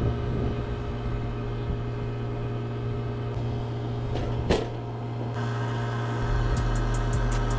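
Electric machinery running with a steady hum, with a sharp click about four and a half seconds in and a deeper low hum joining about six seconds in.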